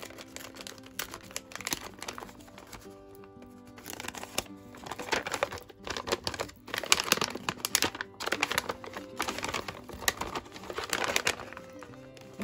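Stiff paper packaging crinkling and rustling in bursts as a black paper packet is handled and opened by hand, busiest from about five seconds in, over soft background music with held tones.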